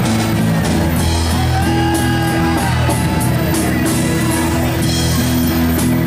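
Rock music with guitar and drums, held notes over a steady beat.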